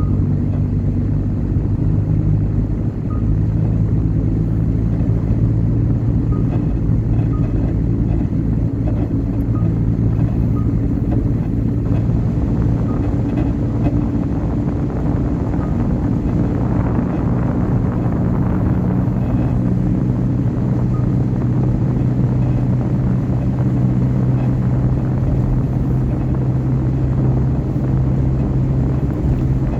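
Car engine and tyre noise while driving along a road: a steady low hum that shifts slightly in pitch partway through.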